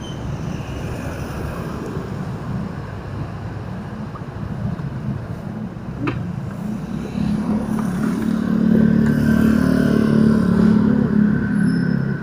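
A vehicle engine running amid street traffic, growing louder and steadier from about seven seconds in as the vehicle moves off. A single sharp click about six seconds in.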